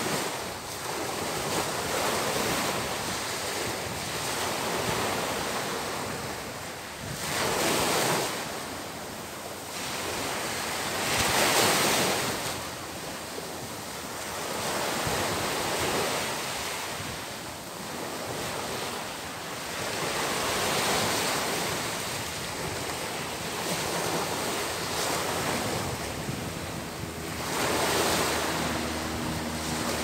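Small ocean waves breaking and washing up onto a sandy beach, the surf swelling and fading every few seconds.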